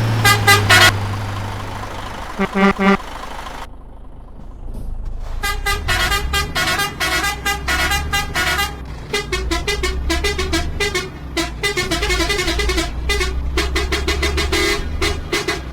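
Vehicle air horn sounding: a few short toots, then from about five seconds in a fast run of changing notes, like a multi-tone horn playing a tune. A low engine hum runs underneath.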